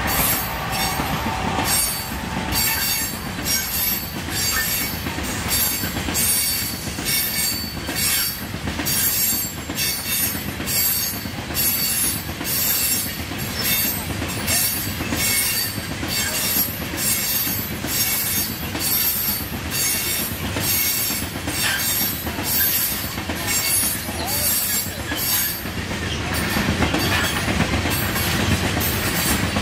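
Train rolling past with high-pitched wheel squeal and a regular rhythm of wheel beats, about one and a half a second, over a steady rumble.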